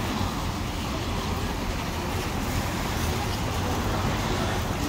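Steady street traffic noise on wet pavement, with a low engine rumble underneath.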